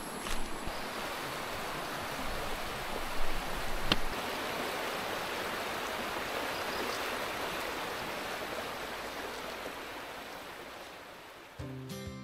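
A river running, a steady rush of flowing water with a sharp click about four seconds in; the water sound fades near the end as guitar music comes in.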